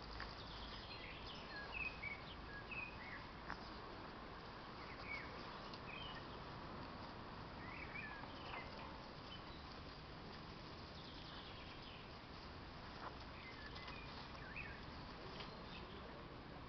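Scattered short bird chirps over a faint steady outdoor background, with light rustling of shrub branches as a beagle pushes and rubs through them.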